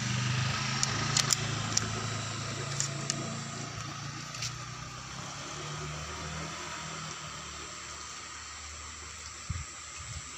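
A few light, sharp clicks as pellets and the magazine of a .25 calibre PCP air rifle are handled during loading, over a steady low motor hum.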